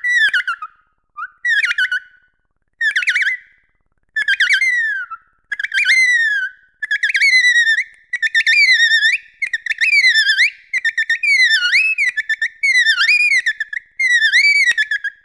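Dolphin whistling: a series of short whistles that sweep up and down in pitch, about one a second and coming closer together in the second half, with a few sharp clicks among them.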